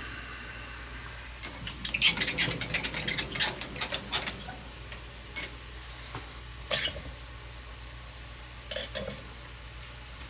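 Metal tools and parts being handled: a quick flurry of small clinks and clatters in the first half, then one sharp metallic clank about two-thirds of the way through and a few softer knocks after it. No machine is running.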